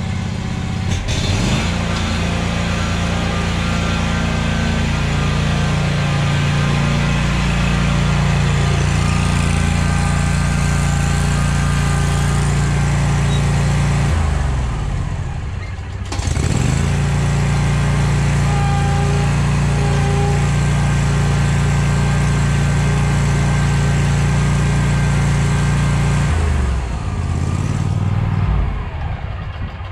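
Scag Cheetah zero-turn mower's engine running steadily at high throttle. About halfway through it briefly drops in pitch and comes back up, then it throttles down near the end.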